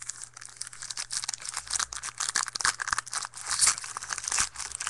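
A baseball card pack's wrapper being torn open and crinkled by hand, with rapid, irregular crackling.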